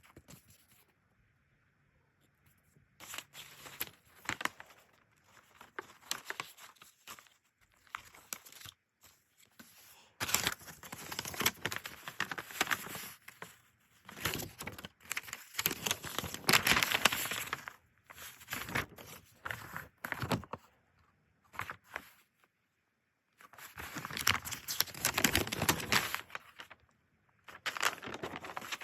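Packing material being handled: paper or plastic crinkling and tearing in irregular spells, with short pauses between them.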